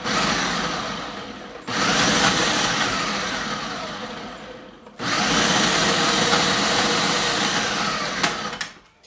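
Small electric food chopper whirring as it chops gooey dried apricots, run in three pulses back to back, the last two each a few seconds long.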